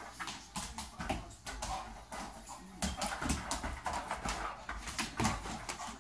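A dog's claws clicking and scrabbling on a hard kitchen floor as it pounces on a ball and shoves it around, with irregular knocks and thumps of paws and ball that grow busier about halfway through.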